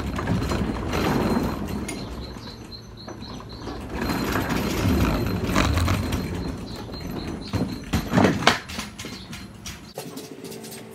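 Four-wheeled kick scooter's small wheels rolling over wooden decking: a rumbling rattle that swells twice, then several sharp knocks near the end as the wheels bump over the boards.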